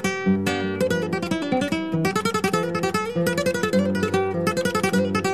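Background music: an acoustic guitar playing fast plucked notes and strums.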